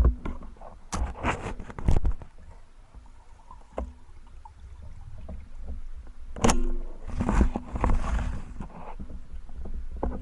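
Water splashing and sloshing, with several sharp knocks and bumps and a low rumble, as from a spearfisher moving through the water with gear.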